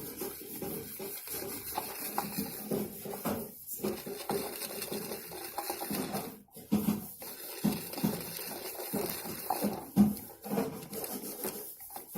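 Light, irregular plastic clicking and scraping of a drinking straw stirring the powder-and-water mix of a DIY candy kit in its small plastic tray, with faint low voices here and there.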